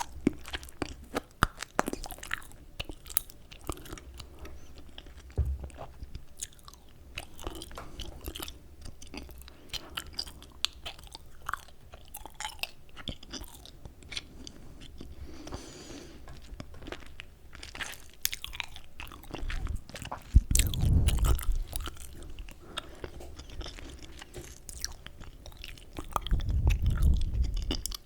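Gum being chewed close to the microphone: a steady run of short, wet clicks and smacks. Louder low rumbles come twice, around two-thirds of the way through and again near the end.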